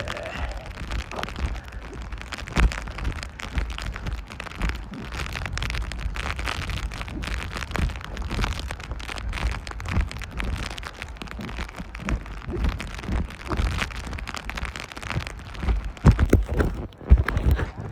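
Rain falling and hitting close to the microphone, a dense crackle of drop hits over a low rumble, with a few louder knocks near the end.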